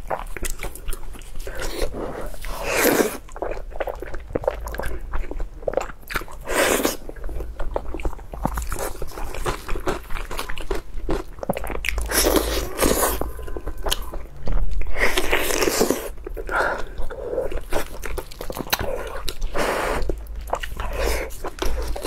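Close-miked eating sounds: a person biting into and chewing roasted sheep meat, with wet mouth clicks and crunchy bites at an irregular pace.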